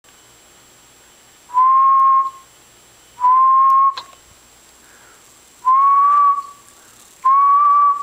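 Four short, steady whistled notes, in two pairs, blown to trigger a homemade whistle-activated light switch. A single sharp click comes about four seconds in.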